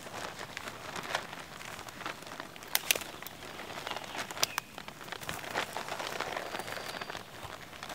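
A large sheet of paper rustling and crackling as it is handled and pressed against a pine trunk, with a few sharp crinkles, the loudest about three seconds in.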